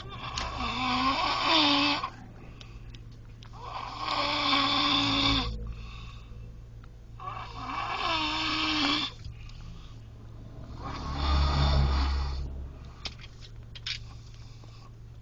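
Slow, regular snoring: four long snores about one every three and a half to four seconds, each with a wavering whistle-like tone over a rasp, and quieter breathing in between.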